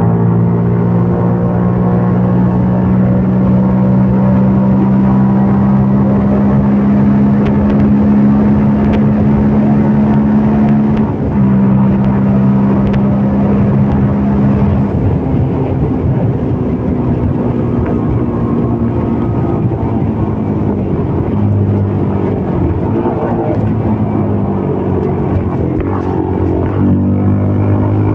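CFMOTO Papio 125's single-cylinder four-stroke engine running under way at fairly steady revs, with the pitch dropping about eleven seconds in and shifting up and down in the second half as the throttle and gears change.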